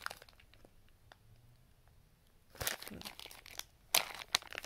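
Clear plastic bag of wax melts crinkling as it is handled, in two short rustling spells in the second half.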